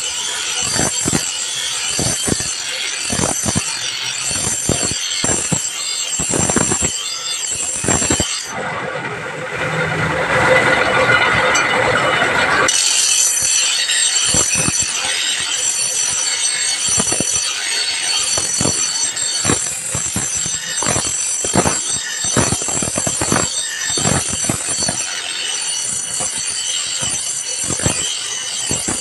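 Steel katar blade being ground on a motor-driven abrasive grinding wheel: a continuous, high-pitched metal-grinding screech that wavers as the blade is pressed and moved across the wheel. For about four seconds a third of the way in, it turns lower and louder.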